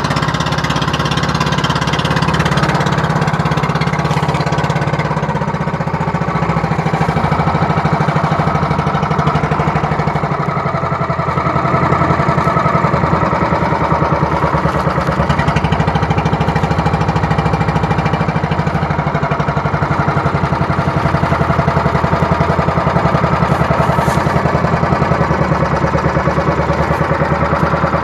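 Small engine of an outrigger boat running steadily under way, with a fast, even pulsing beat and a rush of wind and water; it gets a little louder about twelve seconds in.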